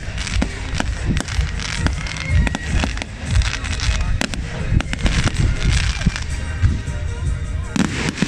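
Aerial fireworks shells bursting in quick succession: many sharp bangs and crackles over a heavy low rumble, with a dense burst of crackling near the end.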